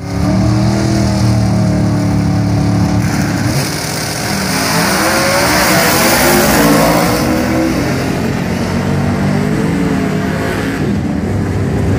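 Drag race car engines running loud: a steady high-revving drone at first, then the pitch climbs for a few seconds as the car accelerates and drops back lower near the end.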